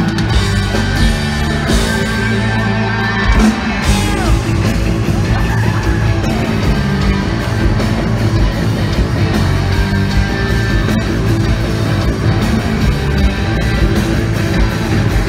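Live rock band playing loudly, distorted electric guitars and drums, with a voice yelling over the music.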